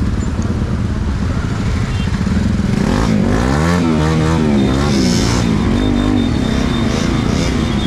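Motorcycle engines running together in a close group, with one engine revved up and down several times from about three seconds in, its pitch rising and falling.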